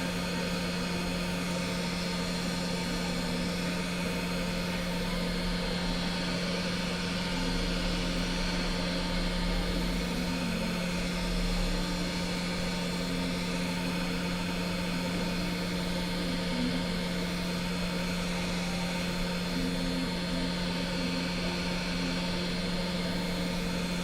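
Steady hum of an electric blower with an even hiss of moving air and a constant low tone, unchanging throughout.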